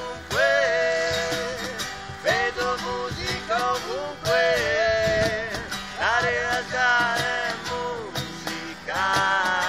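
Live acoustic folk song: a man singing long, held phrases over strummed acoustic guitar.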